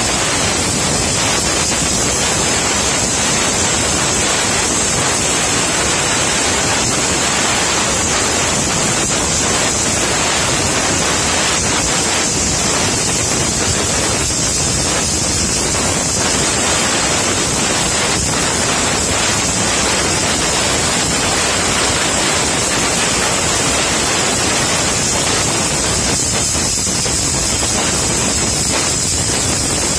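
Clear Water CUT40B self-blowing plasma cutter, air supplied by its built-in compressor, cutting slowly through thick steel: a loud, unbroken rushing hiss of the arc and air jet with a steady high-pitched hiss on top.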